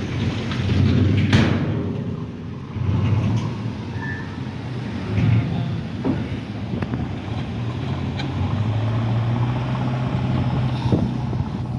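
Motor vehicle running along a road: a steady low engine hum with road noise, and a sharp knock about a second in.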